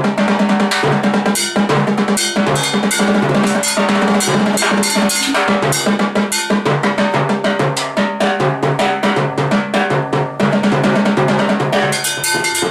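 Percussion jam led by timbales played with sticks: fast strikes, rolls and rimshots over a steady pattern of pitched drum tones. About a second before the end, a ringing cowbell pattern takes over.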